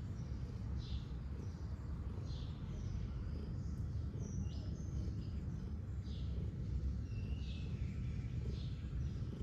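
Domestic cat purring steadily as its head is scratched, with short bird chirps scattered in the background.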